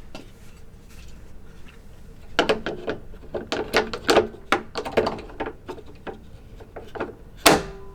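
Plastic clicks and knocks of a Wyze Lock smart-lock unit being pushed and twisted against a deadbolt's thumb-turn adapter, failing to seat, with a sharper snap near the end.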